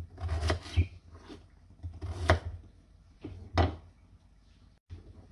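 Kitchen knife cutting through peeled raw potatoes and knocking on an end-grain wooden chopping board: a few separate chops with short pauses between, the loudest about two seconds in.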